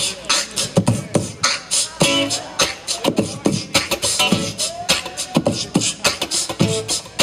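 Live beatboxing: a dense run of rapid vocal percussion strokes, several a second, breaking off from a strummed acoustic-guitar song.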